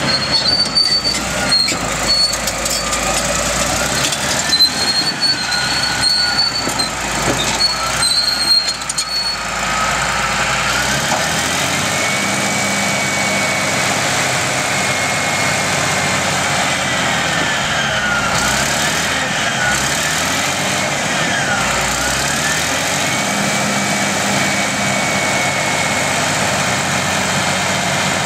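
1997 Caterpillar D6R crawler dozer running. For about the first ten seconds it travels over gravel with the steel tracks knocking and clanking. After that it runs steadily with a high whine that holds level, then dips and climbs back a few times.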